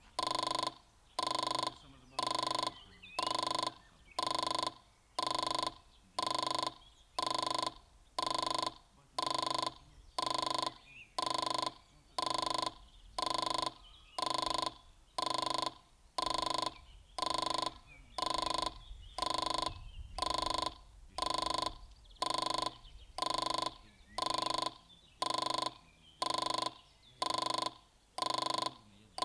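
Level-crossing warning signal giving a steady, even ding about once a second, warning that a train is approaching. Faint bird chirps sound behind it.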